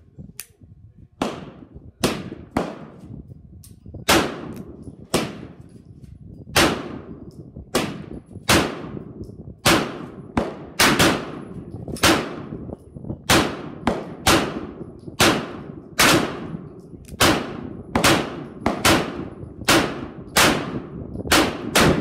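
A long string of gunshots, one to two a second, each followed by a short echo. There are far more shots than one six-shot single-action revolver could fire without reloading.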